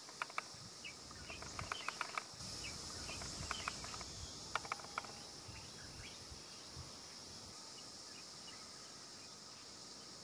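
Faint birdsong and insects: scattered short bird chirps during the first half, over a steady high-pitched insect drone.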